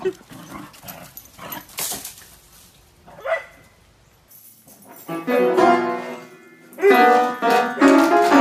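A dog gives a short yelp about three seconds in. From about five seconds a dog paws the keys of an upright piano, banging out loud clusters of notes while howling along.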